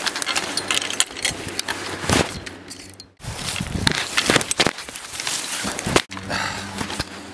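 Footsteps scrambling down a steep slope through wet fallen leaves, with irregular rustling and scuffing underfoot and knocks from the handheld camera. The sound breaks off very briefly twice.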